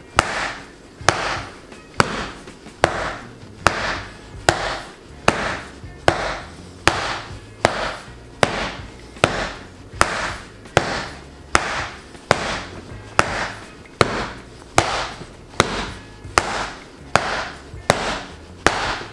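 A wooden glove mallet strikes the pocket of a leather catcher's mitt again and again, in an even rhythm of a little more than one sharp knock a second. This is pocket-spotting: hitting the mitt in one spot to press in the pocket as the first step of breaking it in.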